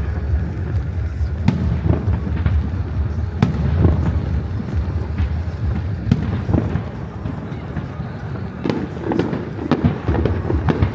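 Fireworks display: an irregular string of sharp bangs and crackles, several a second at times, over a dense low rumble of echoing bursts.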